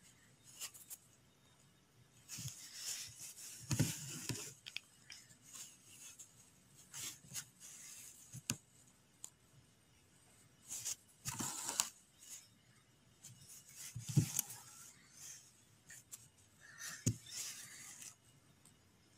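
Embroidery needle and thread being drawn through taut cloth in short, irregular rasps every second or two, as tacking stitches fix a cast-on stitch edge in place. A few soft knocks come from handling the fabric.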